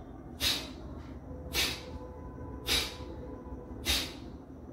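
Kapalbhati breathing: sharp, forceful exhalations through the nose, four short puffs about one a second.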